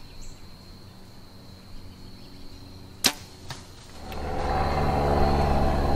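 A bow shot at a whitetail doe: one sharp snap of the bow releasing the arrow about three seconds in, with a fainter crack about half a second after it. About a second later a loud, continuing noise takes over.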